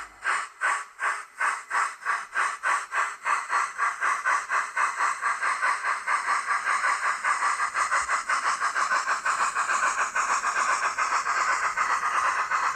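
Dapol Black Label A4 model locomotive's sound decoder playing steam exhaust chuffs through its small speaker, the chuffs quickening steadily as the locomotive gathers speed until they run almost together near the end.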